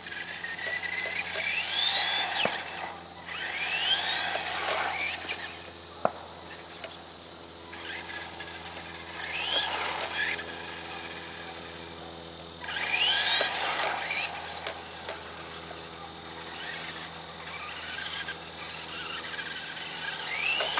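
Tamiya TT-01 RC car's electric motor whining up in pitch with each burst of throttle, about five rising whines as the car accelerates and turns, with a sharp click about six seconds in.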